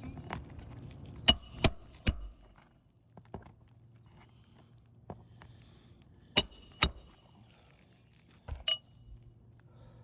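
Hammer driving roofing nails into asphalt shingles: six sharp, ringing strikes in three groups. There are three quick blows about a second and a half in, two more past the middle, and a single one near the end.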